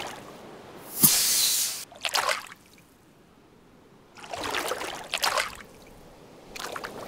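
Cartoon sound effects of water sloshing and splashing in short bursts, with a sharp click followed by a short hiss about a second in.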